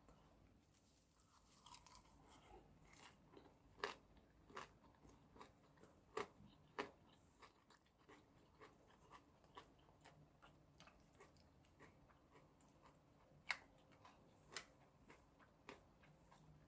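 Close-up eating sounds: a person chewing and biting, with irregular sharp crunches and clicks. A few are much louder than the rest, about four and six seconds in and again near the end.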